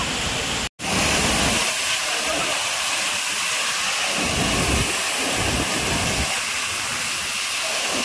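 Steady rushing hiss of a waterfall's falling water, cutting out completely for a split second about a second in.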